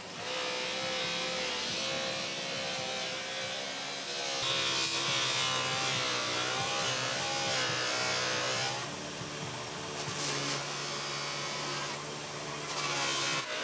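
Electric bench buffer motor spinning a cloth buffing wheel, with the hiss and rub of a plastic car headlight lens being pressed against the wheel to polish it. The rubbing gets louder about four seconds in and then eases and swells a few times as the pressure changes.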